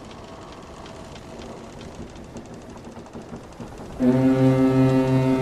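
A ship's horn sound effect starts suddenly about four seconds in and is loud and steady, one held pitched blast with a pulsing low note. Before it there is only a faint hiss with light ticking.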